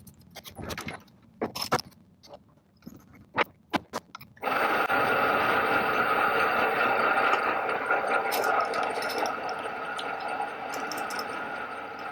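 A few scattered clicks and knocks of metal parts being handled, then a metalworking machine starts abruptly about four and a half seconds in and runs steadily with a continuous whirring hiss.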